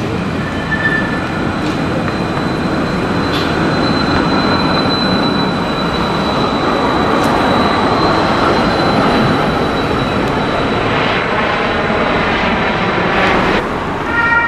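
Munich city tram passing close by: the rumble of its wheels on the rails swells and fades, with a steady high whine through the middle of the pass.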